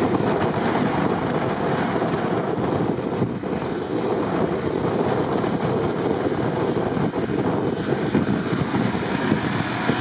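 Strong wind buffeting the microphone, a steady dense rush, over a Range Rover driving hard through deep snow.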